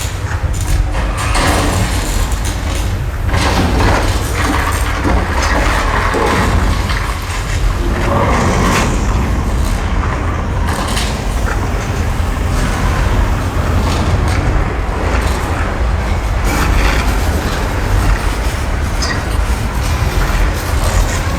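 Simulated earthquake special effects in a theme-park attraction: a continuous loud, deep rumble with crashing and cracking noises over it.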